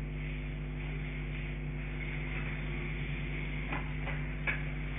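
A steady low hum made of several unchanging tones, with faint hiss and a few faint clicks about four seconds in.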